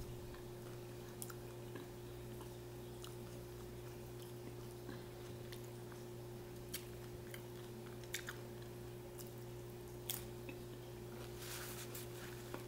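Quiet close-up chewing and mouth sounds of someone eating tacos, with scattered short clicks, over a steady low hum.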